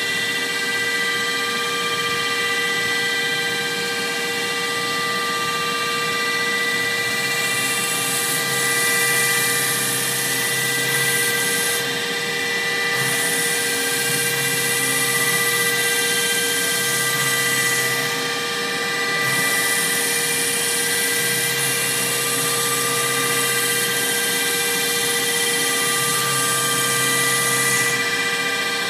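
Hitachi Seiki VS-50 CNC vertical machining center milling a metal workpiece: the spindle runs with a steady multi-tone whine under the hiss of the cutter in the metal. The cutting hiss stops briefly three times and picks up again.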